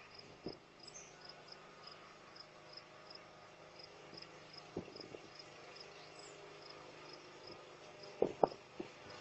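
An insect chirping faintly and evenly in a high pitch, about three chirps a second. A few sharp knocks break in, the two loudest about eight seconds in.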